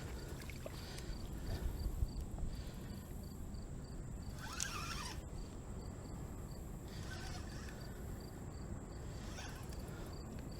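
An insect chirping in a steady, evenly spaced rhythm, faint over a low rumble.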